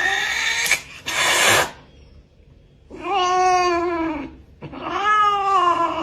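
Domestic cat giving two long, drawn-out meows that sag in pitch at the end, with a pause between them. Before them, in the first couple of seconds, there is a short burst of hiss-like noise.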